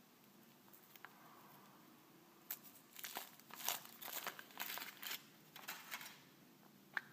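Foil wrapper being peeled by hand off a chocolate surprise egg: a run of sharp crinkles and rustles lasting about three and a half seconds, starting a couple of seconds in, followed by a single click near the end.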